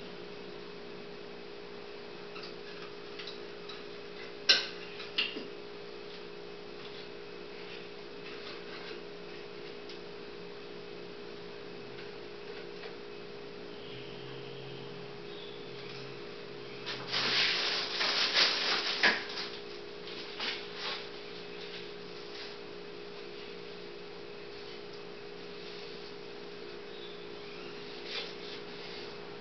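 Steady electrical hum, with a sharp knock a few seconds in and a short spell of clattering and rubbing about halfway through as things are handled at a workbench.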